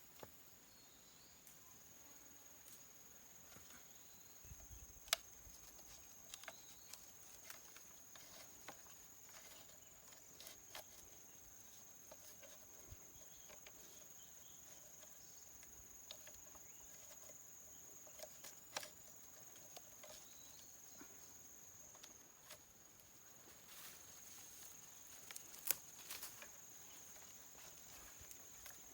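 Faint, steady high-pitched drone of insects, with scattered sharp clicks and taps, the loudest about a sixth of the way in and again near the end.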